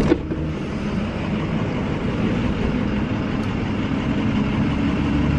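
A car door opens with a short knock at the start, then a vehicle engine idles with a steady low rumble and hiss.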